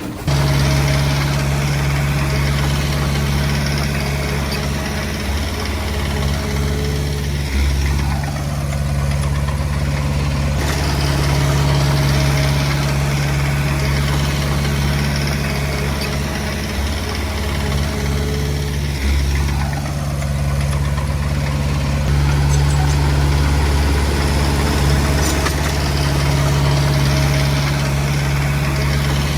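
Small bulldozer's diesel engine running steadily at an even note, with brief shifts in the sound about 8 and 19 seconds in.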